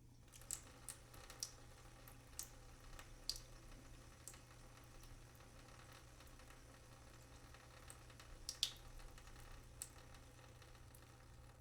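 Faint water drips and small wet clicks, scattered and irregular, over a low steady hum.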